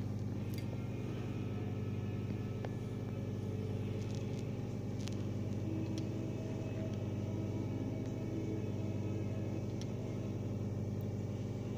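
Steady low machine drone running evenly throughout, with a few faint clicks.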